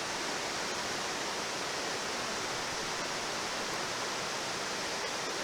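River water rushing steadily: an even, unbroken hiss of flowing current.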